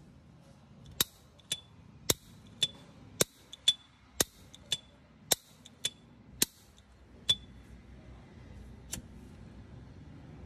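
S.T. Dupont Ligne 2 lighter's hinged lid snapped open and shut again and again, about two sharp clicks a second, many carrying a brief high metallic ring (the lighter's ping). The clicking stops about seven seconds in, and one softer click comes near the end.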